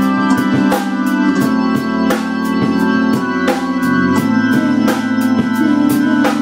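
A music track of sustained organ chords over a steady, evenly spaced beat.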